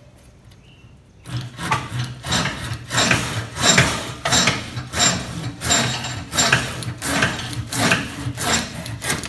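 Tramontina pole pruning saw with a curved, triple-ground blade cutting through a Surinam cherry branch: even back-and-forth sawing strokes that start about a second in and keep a quick steady pace.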